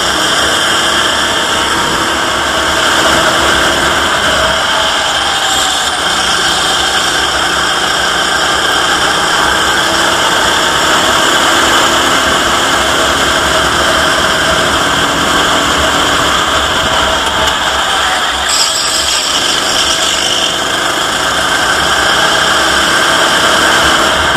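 Racing go-kart engine running under throttle, heard from the kart's own onboard camera, its note rising and falling through the corners over a loud steady rush of wind and vibration noise.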